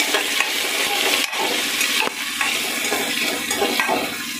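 Chopped onions sizzling in hot oil in a pressure cooker while a spoon stirs them, scraping and knocking against the pot now and then.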